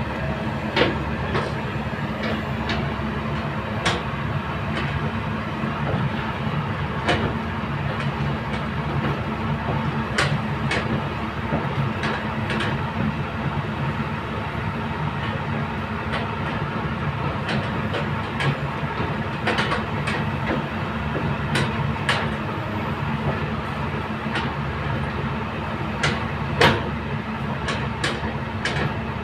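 Kobelco hydraulic excavator's diesel engine running steadily, with scattered sharp knocks and clanks every few seconds, the loudest one near the end.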